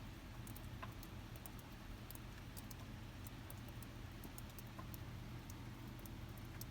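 Wind-driven snow pattering, with many faint irregular ticks over a steady low wind rumble.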